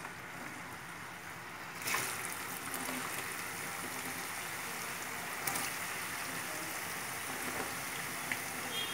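Purple yam fries going into hot oil in a deep frying pan: the oil sizzles and bubbles steadily, jumping to a louder sizzle about two seconds in as more sticks go in, with another brief surge a few seconds later.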